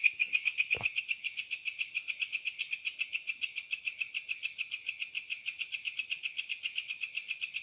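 A night insect's steady pulsing call, a rhythmic trill of about eight or nine pulses a second, typical of a cricket. A brief low thump sounds once about a second in.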